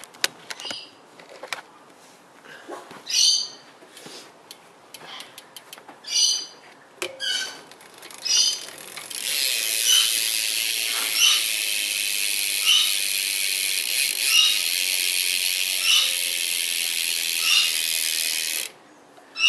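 Rear hub of a BMX bike, a Colony Contour hub, freewheeling while the wheel is spun: a few short bursts of ticking, then, about nine seconds in, a fast, steady ratcheting buzz of the pawls for about nine seconds with a chirp about every second and a half, stopping suddenly near the end.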